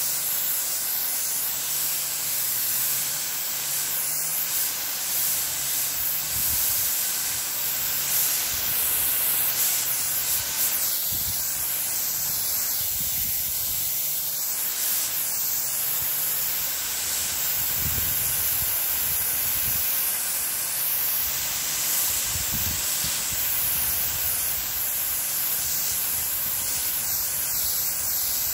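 Fine water mist spraying steadily from a watering nozzle, a continuous hiss.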